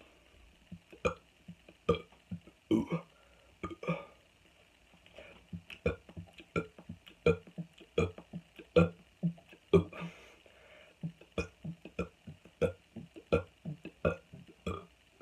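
A person burping deliberately again and again, short separate burps to squeeze as many as possible into one minute. For the first few seconds they come about once or twice a second, then from about five seconds in they speed up to two or three a second.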